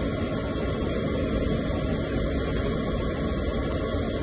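Steady low hum of a large-format inkjet printer working through its automatic nozzle-cleaning cycle (pump, wipe, then spitting ink from the head).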